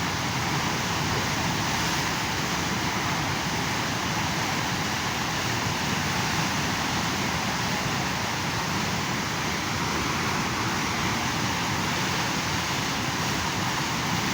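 Fast-flowing river water rushing steadily, an even, unbroken roar of water.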